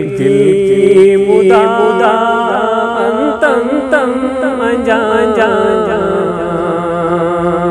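Male voice singing a naat, an Islamic devotional song in praise of the Prophet, in long ornamented phrases over a steady held drone.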